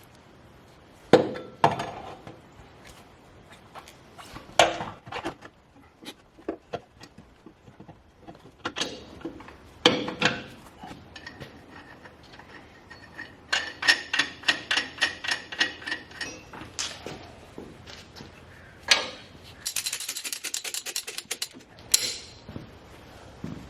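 Hand tools on metal truck suspension parts: scattered clanks and knocks, a ratchet wrench clicking rapidly for a few seconds about halfway through, and a short hiss near the end.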